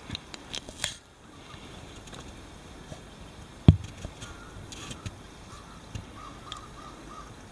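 Camera handling noise: a quick run of light clicks and taps in the first second, one sharper knock about halfway through, and a few softer ticks after it, over a low steady hiss.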